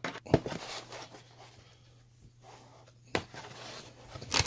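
Cardboard packaging box being handled and its inner lid lifted open: a few short knocks and scrapes of cardboard, one just after the start, one about three seconds in and a louder one near the end, over a faint low hum.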